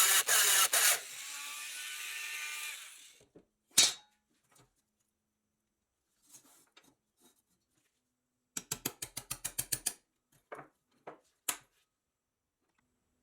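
A power tool running, then spinning down and fading out about three seconds in. After it come a sharp click, scattered small clicks, and near the end a quick run of about a dozen ratchet-like clicks, followed by a few single clicks.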